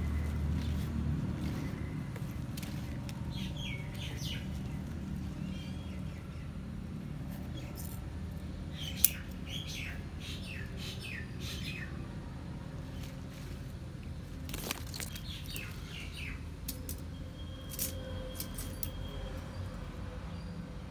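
Birds chirping in short runs of quick calls, with a few sharp snips as scissors cut through roots; the loudest is a single snap about nine seconds in. A low steady rumble runs underneath.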